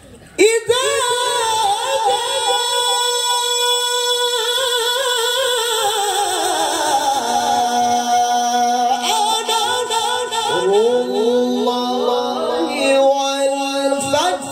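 A man's voice reciting the Quran in a melodic tilawah style, amplified through a microphone and PA, holding long ornamented notes with a wavering pitch. It comes in sharply about half a second in, and around six seconds in it slides down to a lower held note before ornamenting again.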